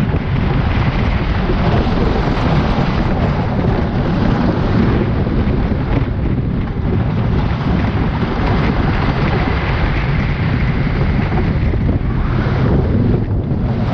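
Wind buffeting the microphone over the steady rumble of a wooden roller coaster train running along its wooden track at speed.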